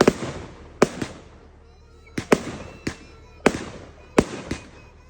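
Fireworks going off in a rapid, irregular series of sharp bangs, about ten in five seconds, each trailing off in a short echoing rumble.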